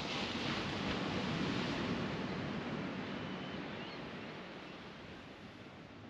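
Ocean surf: a wave breaks with a sudden rush of noise, then washes up the beach and slowly dies away over several seconds.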